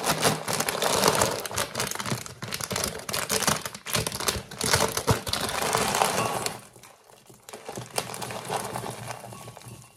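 A crinkly plastic food packet being squeezed and handled, a dense crackling crinkle with a short lull about seven seconds in. Its dry contents are then tipped out into a ceramic bowl.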